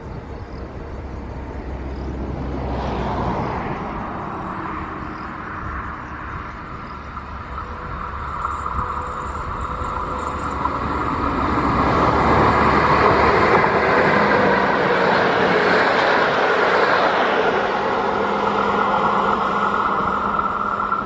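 An electric locomotive hauling double-deck passenger coaches approaches and passes close by on an electrified line. Wheels rumble on the rails over a steady whine, growing loudest about twelve seconds in and staying loud as the coaches run past.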